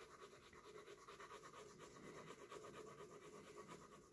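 A colored pencil scratching faintly across sketchbook paper in quick, even back-and-forth shading strokes.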